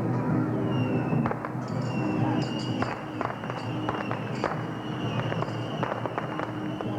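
Firecrackers going off in irregular single cracks over loud procession music with a high held melody line.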